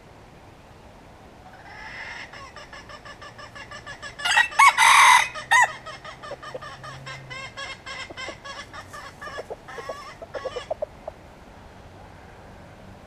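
Red junglefowl rooster calling: a long run of quick, evenly spaced clucks, broken about four seconds in by a louder, short crow.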